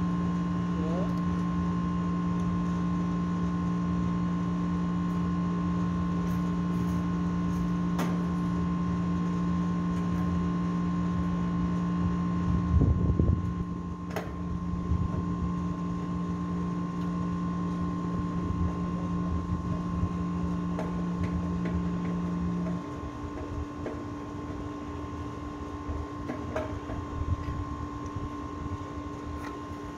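Steady electric machine hum made of several fixed tones. The lowest tone cuts off about 23 seconds in, and the sound drops in level. A short, louder rush of noise comes about 13 seconds in, along with a few sharp clicks.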